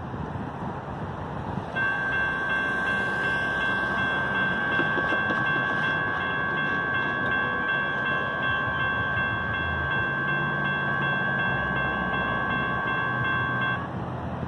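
A pair of ASC electronic crossing bells (e-bells) on an activated railroad crossing signal, ringing a rapid, steady electronic ding that starts about two seconds in and cuts off suddenly near the end, once the gate arms are fully down.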